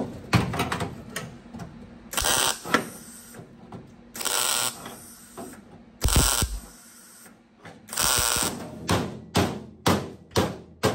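Wire-feed welder laying four short tack welds on a sheet-metal patch, each a half-second hiss, about two seconds apart. Near the end, a run of hammer taps on the sheet metal, about two a second.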